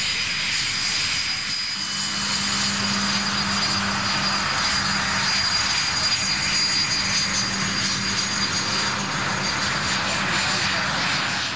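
Dassault/Dornier Alpha Jet's twin turbofan engines running as it taxis past: a steady high whine over an even jet rush, a little louder in the middle of the pass.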